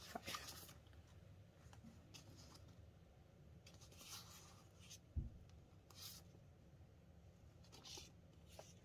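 Faint crinkling of Canadian polymer banknotes being handled and counted, a few brief rustles spaced a second or two apart. A soft low thump about five seconds in.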